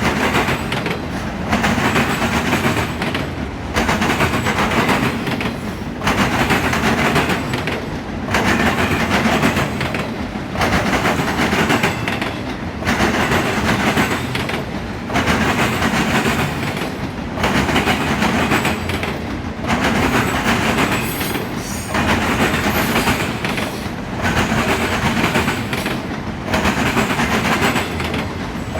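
CSX auto rack freight train rolling past, wheels clacking over the rails and the cars rumbling. The noise swells and dips in a regular rhythm, about once every two seconds.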